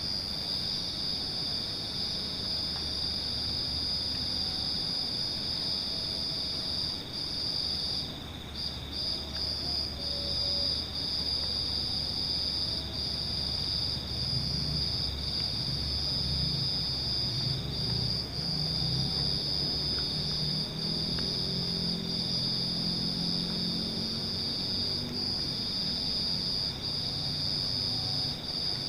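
Night insects trilling in a steady, high-pitched chorus with a few brief breaks, over a steady low hum.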